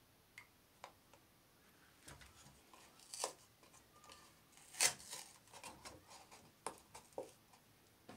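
Hands handling a paper milk carton: light crinkling and tapping of the cardboard as its spout is pressed shut and the carton is stood upright, with one sharper tap a little past the middle.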